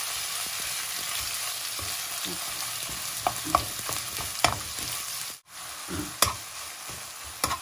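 Minced pork frying in hot oil in a non-stick frying pan, a steady sizzle with a metal spoon stirring and clicking against the pan several times. The sound cuts out for a moment a little past halfway, then the sizzle and stirring carry on.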